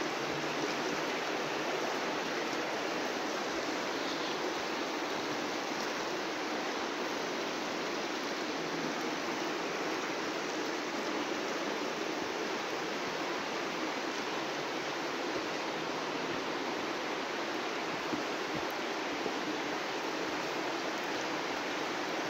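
A steady, even rushing noise that holds the same level throughout, with no distinct knocks or voices in it.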